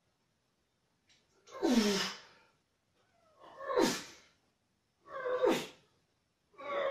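A man's forceful exhalations with effort, each a short groan falling in pitch, timed to his dumbbell reps: three, a second and a half to two seconds apart.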